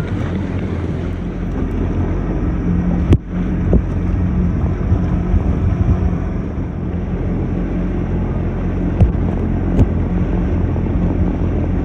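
Jet ski engine running steadily, with wind noise on the microphone. There is a sharp knock about three seconds in and two lighter clicks later on.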